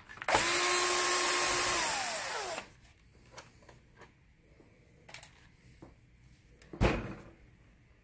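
Power screwdriver running for about two seconds to back out a screw from the projector chassis, a steady motor whine that falls in pitch as it slows and stops. A few small clicks follow, and a short knock comes near the end.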